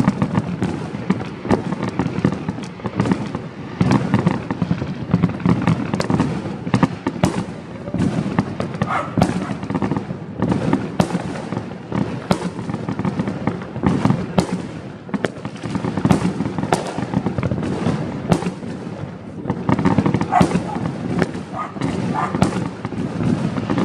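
Many fireworks and firecrackers going off at once, near and far: a dense, unbroken stream of bangs and cracks over a constant low roll of distant explosions.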